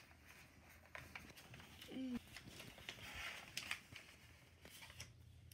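Faint rustling and soft clicks of a small paperback book's pages being turned and handled. A short vocal sound from a child about two seconds in.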